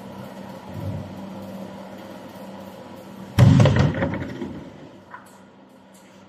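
Rotational moulding machine running with a steady hum, then a sudden loud burst of noise a little over three seconds in that dies away over about a second and a half.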